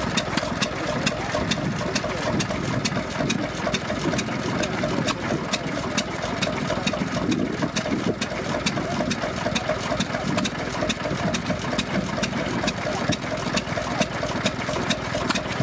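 Vintage single-cylinder stationary engine running steadily at idle, with an even ticking several times a second.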